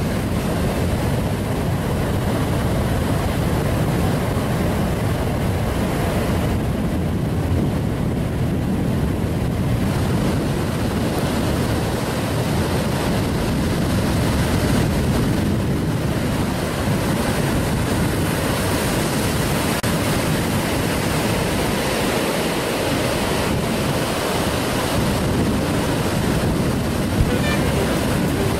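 Steady rush of small ocean waves breaking and washing through the shallows, with wind rumbling on the microphone.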